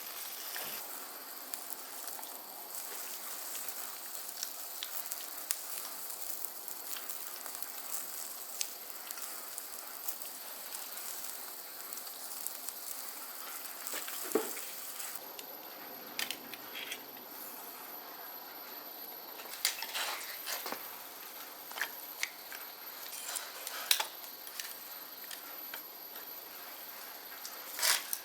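Food sizzling and the fire crackling on a small stainless steel camping barbecue stove: a steady hiss full of small crackles, with a few sharper clicks and taps in the second half.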